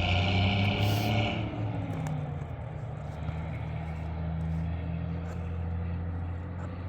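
Gas torch burning with a steady low roar, heating isogam roofing membrane. A higher hiss above it drops away about a second and a half in.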